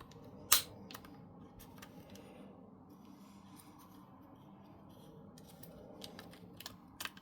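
Handling of a folding pruning saw while its blade is adjusted and folded. There is one sharp click about half a second in, then faint fiddling, and a few more clicks near the end.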